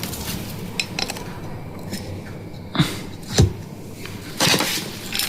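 Scattered knocks and metallic clinks of tools and engine parts being handled, the loudest a low thump about three and a half seconds in, over a steady low hum.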